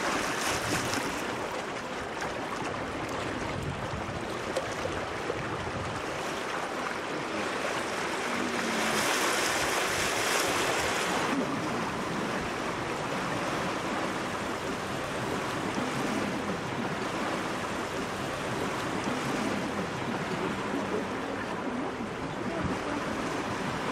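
Steady rush and wash of water along the hull of a steam boat under way. It grows into a louder hissing rush for about three seconds near the middle.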